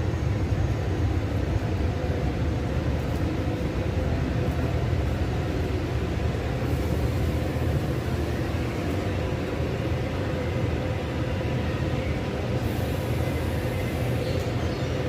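Steady low rumble with a faint constant hum, like running machinery or air handling.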